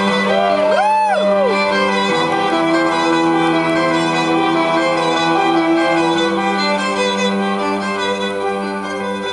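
Slow instrumental performance music of long held notes, the harmony shifting about two seconds in, with a brief swooping rise and fall in pitch about a second in.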